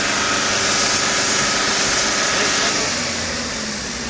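Tata BS6 truck diesel engine running raised with a loud rushing air hiss from a burst turbo pipe leaking boost air. About three seconds in the hiss falls away as the engine settles toward idle.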